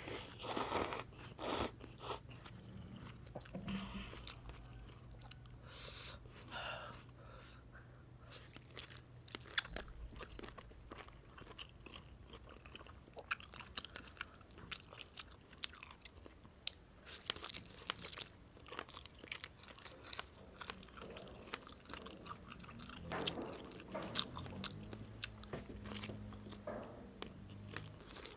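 A person eating beef noodle soup close to the microphone: steady chewing with many small, sharp mouth clicks and smacks, and a few longer noisy mouthfuls near the start and again about three quarters of the way through.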